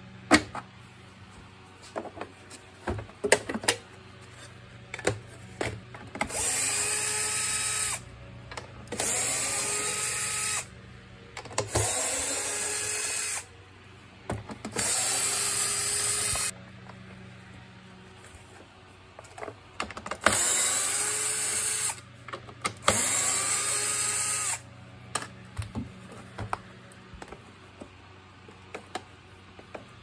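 Compact cordless drill-driver run in six short bursts of about one and a half to two seconds each, spinning up quickly at the start of each, while driving screws out of a vacuum cleaner's plastic housing. Between the bursts come clicks and clatter of plastic parts and screws being handled.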